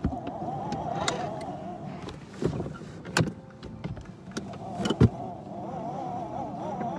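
Small electric motor of a children's ride-on toy car whining as the car drives, the pitch wavering slightly; the whine drops back in the middle and picks up again near the end. A few sharp knocks and bumps sound over it, the loudest about five seconds in.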